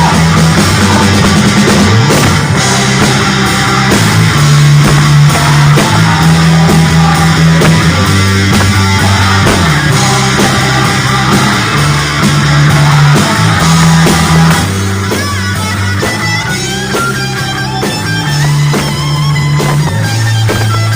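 Instrumental band music with electric guitar, bass guitar and drum kit, the bass moving through a repeating pattern of held notes that change every second or two.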